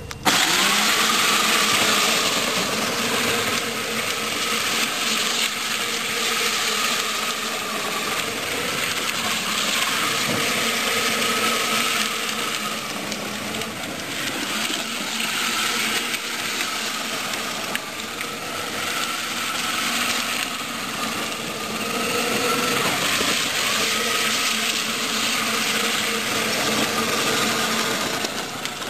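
24-volt Power Wheels ride-on toy Jeep running, its electric drive motors and gearboxes whining with a pitch that wavers, over the hiss of hard plastic wheels rolling on asphalt.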